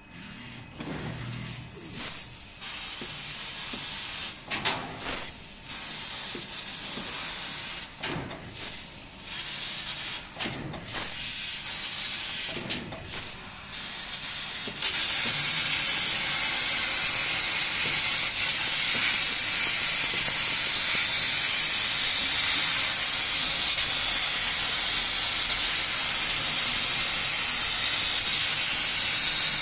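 Fiber laser cutting machine cutting sheet metal: the gas jet at the cutting head hisses in short, irregular bursts as it starts and stops each cut. About halfway through it settles into a loud, steady, high hiss of continuous cutting.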